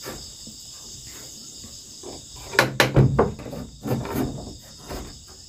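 Crickets chirring steadily in the night. About two and a half seconds in there is a short cluster of sharp knocks and bumps on wood, with a few softer bumps after it.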